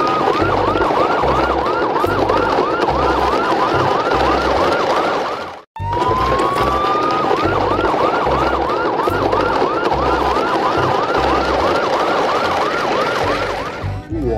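Electronic siren: a rising wail that breaks into a fast yelp of quick up-and-down sweeps, about three a second, over a regular low beat. It cuts out for a moment about six seconds in and starts again with the same rising wail.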